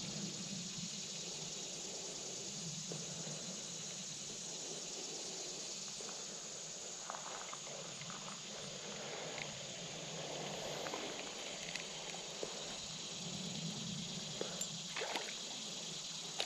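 Quiet outdoor ambience: a steady faint hiss with a few small clicks and taps, most of them near the end.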